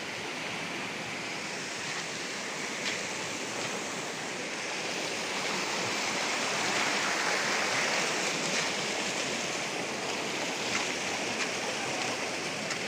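Cold spring water rushing through a rocky channel: a steady rush that swells a little in the middle.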